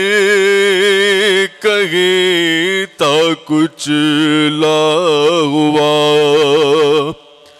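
Unaccompanied soz khwani: a male voice chanting a Muharram elegy in long, ornamented, wavering held notes over a steady lower held note, breaking off about seven seconds in.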